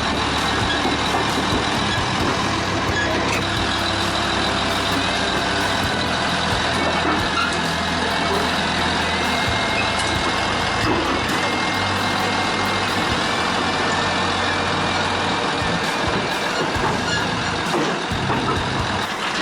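Caterpillar D7R Series II crawler bulldozer's diesel engine running under load, with a backup alarm sounding. The low engine note drops away in the last few seconds.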